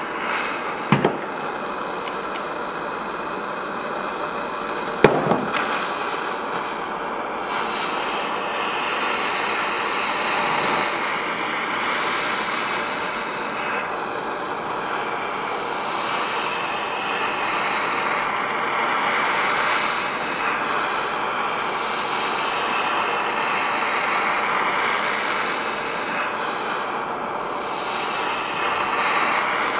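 Handheld butane torch hissing steadily as it heats the engine casing around the crankshaft bearing to free a press-fit part. Two sharp clicks sound in the first few seconds.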